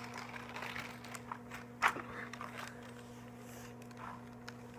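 Plastic Hot Wheels track set being handled: scattered light clicks and rustles, with one sharper click about two seconds in, over a steady low hum.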